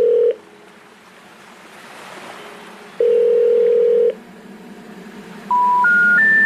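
Synthesized electronic beep tones: a steady mid-pitched tone that cuts off just after the start, the same tone again for about a second around three seconds in, then three short beeps stepping up in pitch near the end. A faint hiss lies between the beeps.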